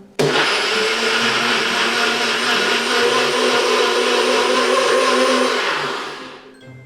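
NutriBullet blender switching on abruptly and running steadily with a faint high whine, blending a smoothie, then winding down about six seconds in.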